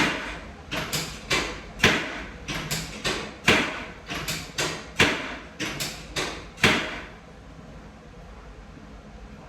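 Chiropractic drop table's drop section dropping under the adjuster's thrusts during a hip-levelling adjustment: a run of sharp knocks and thuds, the loudest about every second and a half, with lighter knocks between. They stop about seven seconds in.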